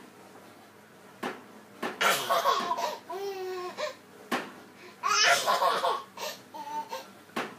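A baby girl laughing in repeated bursts, a deep, hearty 'dirty' laugh with a pitched squeal in the middle, and a few short sharp knocks between the laughs.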